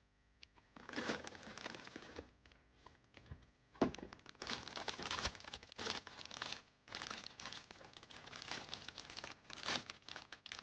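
Plastic blind-box packaging crinkling and tearing as it is opened by hand. A sharp snap comes just before four seconds in, followed by a long stretch of steady crinkling.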